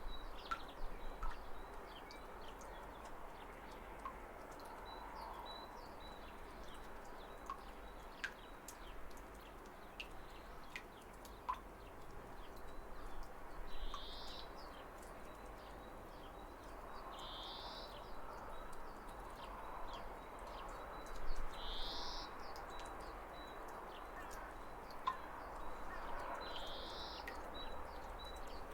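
Waterfall water rushing steadily, with small birds chirping over it. A faint, rapid high ticking runs under the water. In the second half one bird gives four short, louder calls a few seconds apart.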